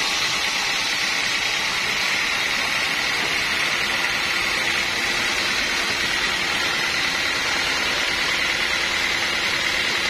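Band sawmill running steadily, its band blade sawing through a teak log, with an even high whine over the machine noise.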